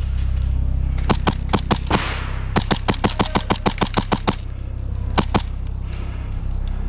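Airsoft guns firing in bursts of rapid shots: a short volley about a second in, a longer fast string of several shots a second in the middle, and two more shots near the end.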